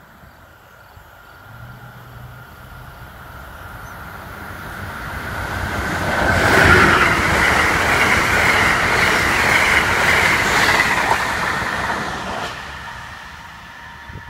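Amtrak passenger train with Amfleet coaches passing at speed. The rumble and rail noise build over several seconds as it approaches, stay loud for about six seconds while the coaches rush by, then drop away quickly.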